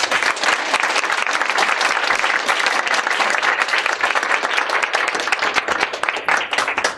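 Audience applauding, a dense run of clapping that thins out near the end.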